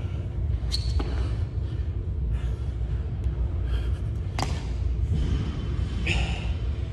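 Burpees on a gym floor: a few sharp knocks and thuds as hands and feet land, the loudest just past the middle, over a steady low rumble of gym background noise.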